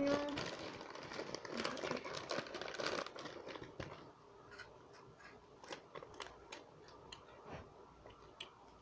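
Snack packet crinkling and rustling for about the first three seconds, then scattered faint crunches.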